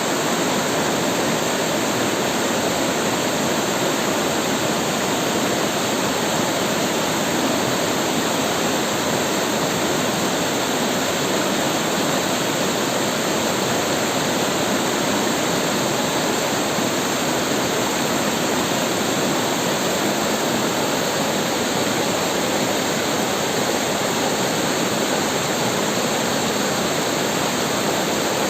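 Rushing river water flowing over rocks: a loud, steady roar of running water with no breaks.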